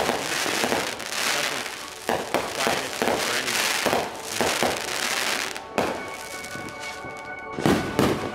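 Fireworks going off: a dense run of crackles and bangs. At about six seconds music with held tones comes in, with a few more loud bangs near the end.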